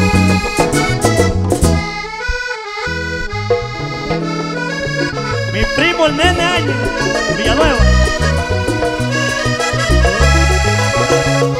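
Vallenato band playing an instrumental passage led by a button accordion, over bass guitar, caja drum, congas and a metal guacharaca scraper. The bass drops out for about a second, some two seconds in.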